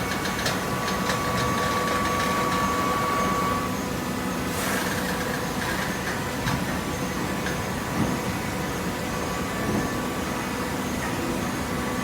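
Hydraulic cardboard baler running: a steady machine hum with several held tones, a few light clicks in the first seconds and a short hiss about four and a half seconds in.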